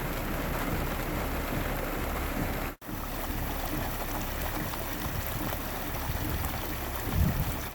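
Steady rain with running water, an even hiss that cuts out for an instant about three seconds in. A louder low rumble swells near the end.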